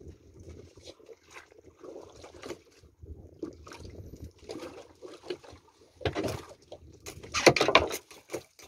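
Water sloshing and slapping against the hull of a small open boat drifting at sea, with irregular small knocks. A louder rushing noise comes twice in the last three seconds.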